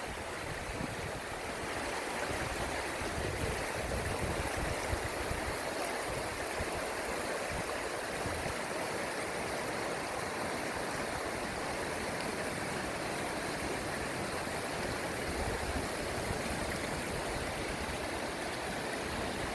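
Waterfall rushing with a steady, even noise of falling water.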